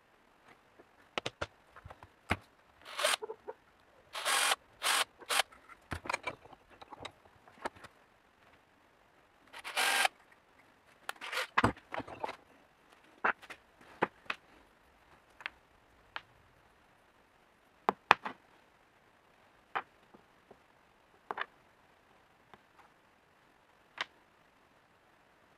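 Hand-tool work on a wooden blank in a bench vise: a string of sharp knocks and clicks mixed with several short scraping strokes, as a centre punch marks the blank's end. Later the sounds thin out to single clicks, the last one near the end as a steel ball bearing is set down on a plywood board.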